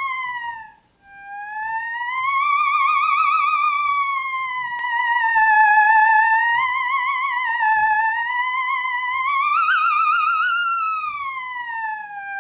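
Moog Etherwave Plus theremin playing a horror-soundtrack effect: a single tone with quick vibrato that glides slowly up and down. It cuts out briefly about a second in.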